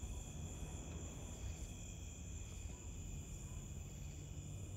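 Steady night chorus of crickets, several high-pitched tones held without a break, over a low rumble.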